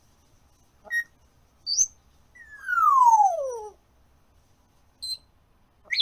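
African grey parrot whistling: a short chirp about a second in, a brief upward whistle, then one long whistle gliding down from high to low pitch, a 'hyuu', which is the loudest sound here. A short high 'pii!' chirp follows near the end.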